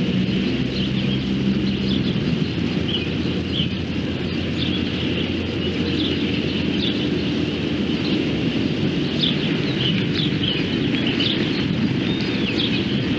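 A train rumbling steadily past, with an engine-like hum in the first couple of seconds, and birds chirping repeatedly over it.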